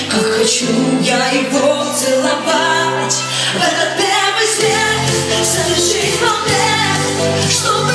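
Pop song played by a band, with a voice singing over it.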